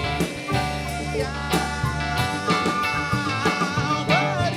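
A rock band playing an instrumental passage: a flute melody over electric bass, guitar, and drums with cymbal strokes.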